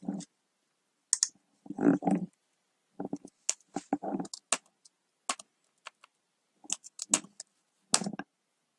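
Computer keyboard keystrokes, typed in short irregular clusters with brief pauses between, some keys landing with a heavier thud.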